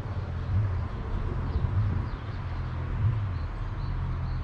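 Outdoor ambience: a steady low rumble that swells and fades, with faint short bird chirps repeating near the end.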